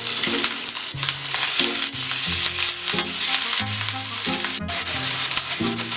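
Onions, whole spices and ginger-garlic paste frying in hot oil in a pan, sizzling steadily as they are stirred. Background music with a stepping melody plays underneath.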